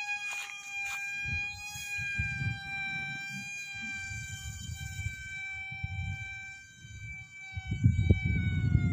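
Electric motor and propeller of a battery-powered homemade model aeroplane giving a steady high whine that drops in pitch near the end. A low rumble of wind on the microphone runs underneath and is loudest in the last second or so.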